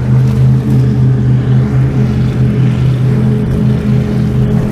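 Offshore racing powerboats running flat out across the water, their engines a loud, steady drone.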